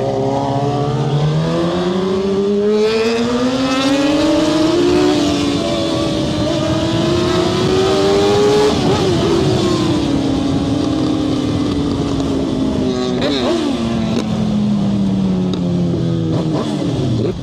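Suzuki motorcycle engine pulling steadily up through the revs, its note rising for about eight seconds, then slowly winding back down.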